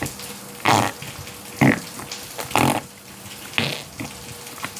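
Slime squeezed in the hands, giving four short wet squelching clicks about a second apart.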